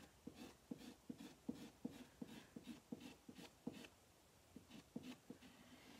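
Faint plastic squeegee scraping chalk paste across a silkscreen stencil on a wooden board, in quick short strokes about three a second, with a brief pause about two-thirds of the way through.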